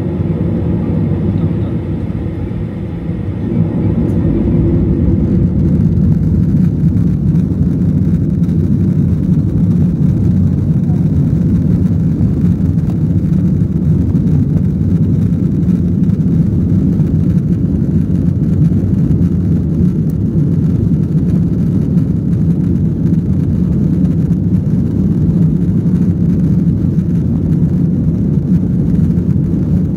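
Jet engine and airflow noise of a Boeing 737 heard inside the cabin: a loud, steady rumble that grows louder about four seconds in and then holds level.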